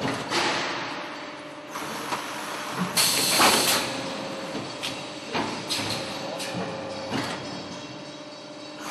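Polystyrene foam container machine running: knocks and clanks of its stacking mechanism over a steady hum, with a loud hiss of compressed air about three seconds in as a pneumatic cylinder exhausts.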